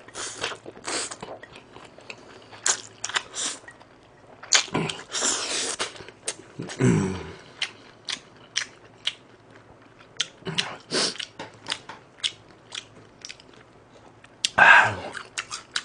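Close-miked eating: wet chewing and crunching of spicy Buldak noodles wrapped in roasted seaweed, with many short clicks and a longer slurping stretch about five seconds in. Brief voiced sounds from the eater about seven seconds in and, loudest, near the end.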